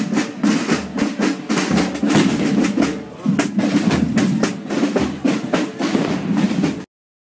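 Drumming with fast snare-drum rolls, cutting off suddenly near the end.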